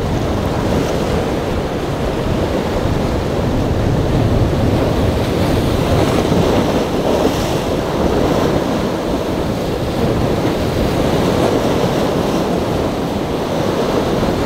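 Choppy surf and wind blowing across the microphone: a loud, steady rush of noise.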